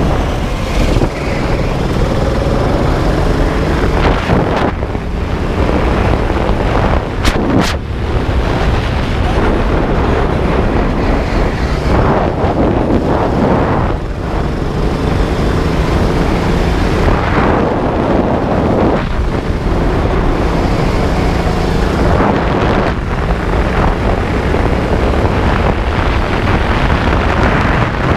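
12 hp go-kart engine running hard close to the camera, its pitch rising and falling with the throttle, mixed with wind buffeting on the microphone. A couple of sharp knocks come about seven seconds in.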